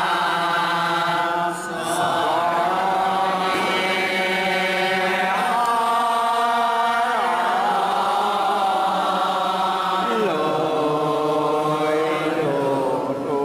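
Men chanting an Assamese devotional hymn together, with no instruments, holding long drawn-out notes that slide slowly up and down. The chant breaks briefly about a second and a half in and again near the end.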